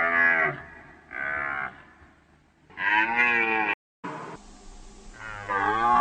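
Deer calling: three short, pitched bellowing calls, then a brief cut to another recording where a longer call begins near the end.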